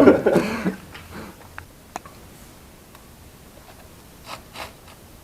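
A few faint sharp clicks followed by two short soft rubbing rustles, with a man's voice trailing off at the very start.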